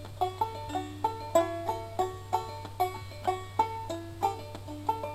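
Background banjo music: a picked tune of quick plucked notes, each fading out, over a steady low hum.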